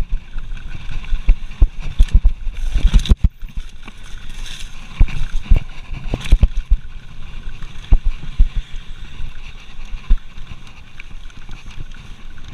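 Mountain bike riding fast down a dirt trail: the tyres rumble over the ground, and the bike rattles with frequent irregular knocks and thuds as it jolts over bumps and roots.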